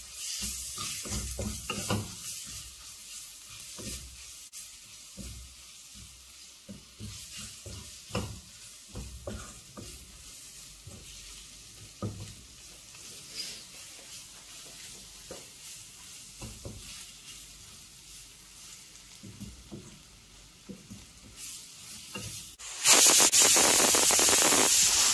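Onions sizzling in oil in a stainless steel pan while a wooden spatula stirs and scrapes them, with irregular knocks of the spatula against the pan. Near the end a pressure cooker lets off a loud hissing blast of steam for about two and a half seconds: the cooker whistling as it comes up to pressure.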